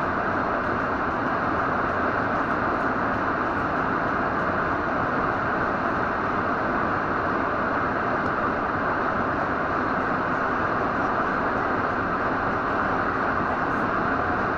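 Steady road and wind noise of a car driving, heard from inside the cabin.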